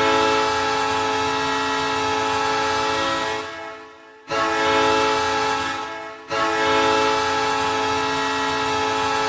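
Ice hockey goal horn, a train-style horn sounding a chord of several pitches, blown three times: a long blast of about three and a half seconds that fades, a shorter blast of about two seconds, and a third blast held past the end.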